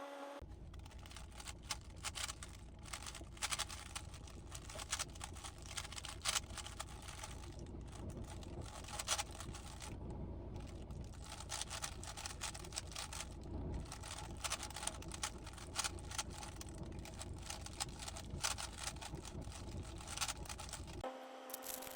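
Rubik's cube being turned rapidly by hand: a dense, irregular run of small plastic clicks and clacks as the layers snap round.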